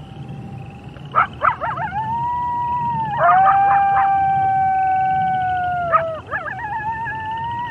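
A pack of wolves howling in chorus. Several long, steady howls overlap at different pitches, broken by clusters of short yips about a second in, around three seconds in and again near six seconds.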